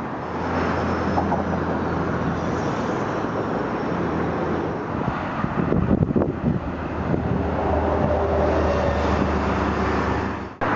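A motor vehicle engine running steadily under traffic and road noise, with gusts of wind buffeting the microphone around the middle.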